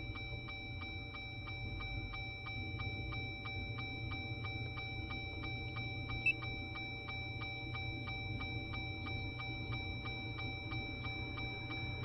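Fast, even electronic ticking, about four ticks a second, over a steady high-pitched whine and a low hum, with one short click about six seconds in.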